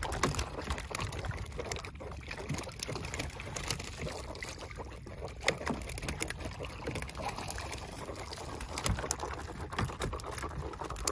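Long-handled dip net being worked through seawater at the side of a boat, with water splashing and pattering off the mesh in many small drops.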